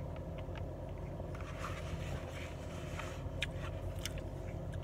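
Steady low hum of a car heard inside its cabin, with a few small clicks from eating.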